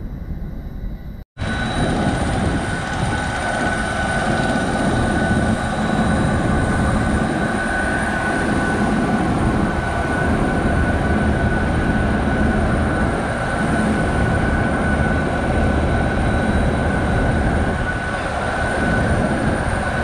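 Steady whine and rumble of jet airliners standing on the apron, holding an even pitch, with a sudden break in the sound about a second in.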